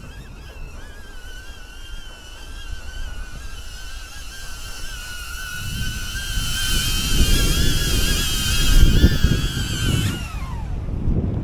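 HoverAir X1 mini drone's propellers whining at a steady, slightly wavering pitch, then falling in pitch as the motors spin down near the end. Wind buffets the microphone, growing in the second half.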